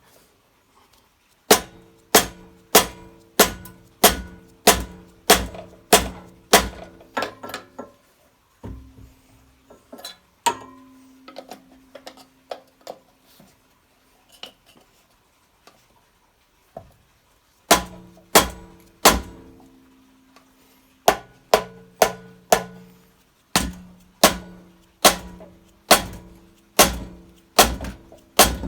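Hammer blows on steel at the flywheel of an old Honda generator engine, with a pry bar wedged behind it, struck to break the flywheel off its crankshaft taper. Each blow rings with a metallic tone. The blows come about one and a half a second in two long runs, with a lull of scattered lighter taps between them, and the flywheel stays stuck.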